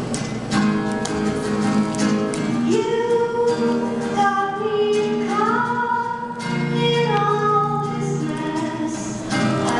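Two female voices singing together over a strummed acoustic guitar, with several long held notes in the middle.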